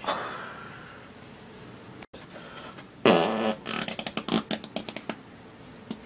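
A loud fart about three seconds in: one held low note that breaks into a rapid sputter of short bursts for about two seconds. A quieter sudden sound at the very start fades away over about a second.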